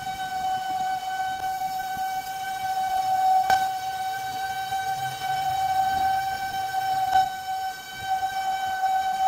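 Lathe cutting tool turning a high-strength steel blank, giving a steady high whine at one pitch, with a couple of faint clicks from the cut.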